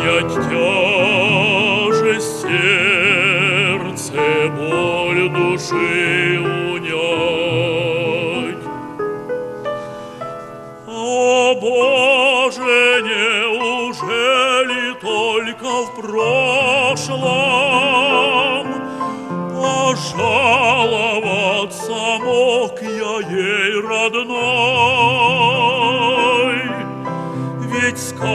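A male operatic voice sings with a wide vibrato over piano accompaniment. About nine seconds in the voice pauses for roughly two seconds, leaving the piano alone, then comes back in.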